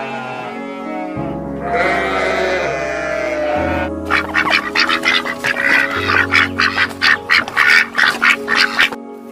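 An animal calling over steady ambient background music: a few longer pitched calls, then from about four seconds in a rapid run of short, harsh calls, several a second.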